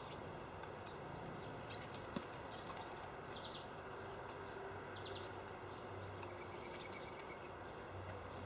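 Small birds giving short, high chirps and calls now and then over a faint background, with a single sharp tap about two seconds in. A steady low hum comes up from about halfway through.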